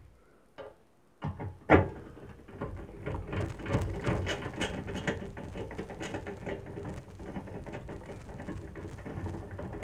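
Hands working inside an open microwave oven's chassis: a sharp knock near two seconds in, then continuous clicking, rattling and rustling as wires, connectors and plastic and metal parts are handled.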